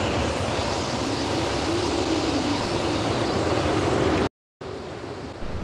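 Steady rushing wind noise, which cuts out suddenly about four seconds in and comes back as a quieter hiss after a brief gap of silence.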